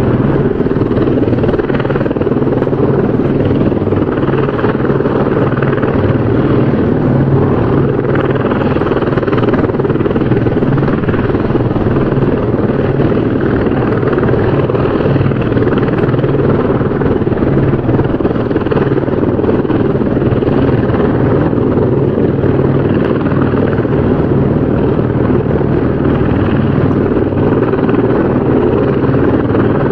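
Helicopter running steadily, its rotor blades beating a rapid, even chop over the engine.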